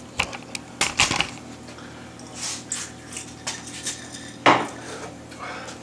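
Kitchen clatter at a stove: scattered light clinks and knocks of pans and utensils, with one louder short sound about four and a half seconds in.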